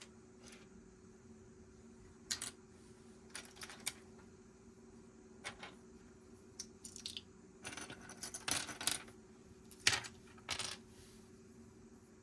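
Small plastic Lego pieces clicking and clattering as they are handled during a build, in irregular sharp clicks with a busier run of clatter about two-thirds of the way in.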